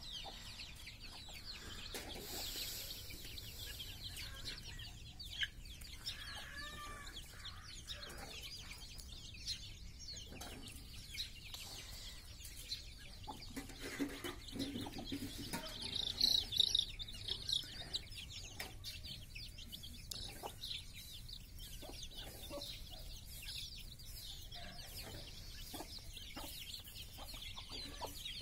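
Chicks peeping over and over in short high calls, with hens clucking now and then in lower voices. A louder bout of peeping comes about sixteen seconds in.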